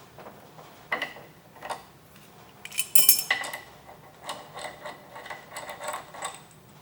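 Adjustable wrench and steel crank nut clinking as the nut is undone and taken off an exercise bike's crank arm: scattered metal clicks, with the loudest, a ringing clank, about three seconds in.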